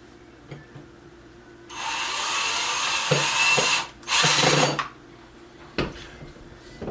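Cordless drill driving a screw into a furniture panel: one run of about two seconds, then a shorter second run. A single knock follows near the end.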